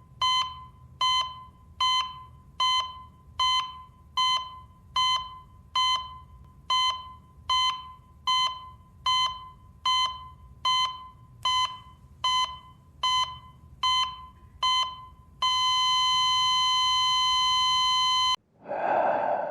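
Heart monitor beeping steadily with the pulse, a short high beep about every 0.8 seconds (roughly 72 beats a minute). After about 15 seconds it goes into one continuous flatline tone, held for about three seconds, which is the monitor's sign that the heartbeat has stopped. It cuts off suddenly and is followed by a short breathy gasp-like sound.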